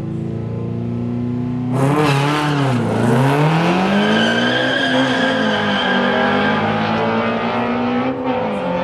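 Two drag-race cars launching off the start line. Their engines run at steady revs on the line, then about two seconds in there is a sudden surge as they launch and accelerate away. The engine note dips and climbs again as they pull off down the strip.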